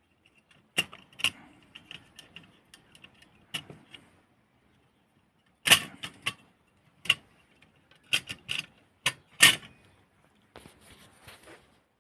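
Sharp metallic clicks, knocks and light rattles from parts of a Consul 235 portable typewriter being handled, coming irregularly in small clusters, with a softer rustle near the end.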